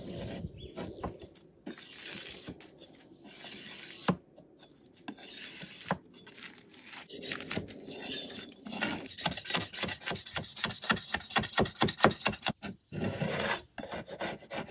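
Steel scraper blade pushed along a painted wooden panel, lifting old paint off in peeling strips: a rasping scrape, which turns into a fast run of short, even strokes about nine seconds in.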